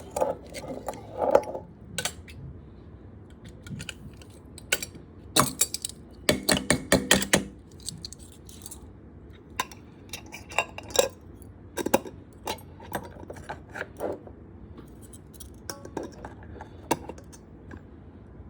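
Kitchen clatter: dishes and utensils clinking and knocking, with a quick run of taps about six seconds in.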